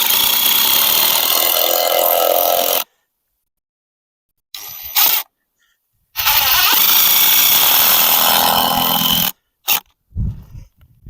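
A power tool running loudly in two bursts of about three seconds each, with a shorter burst between them.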